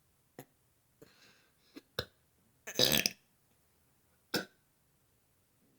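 A person burping repeatedly: several short, separate burps, with the loudest and longest, about half a second, near the middle.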